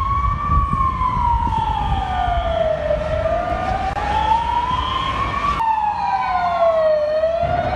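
Emergency vehicle siren wailing, its pitch sliding slowly up and down, about five seconds to each rise and fall, over a steady low rumble. The sound breaks off abruptly a little past halfway and the wail picks up again.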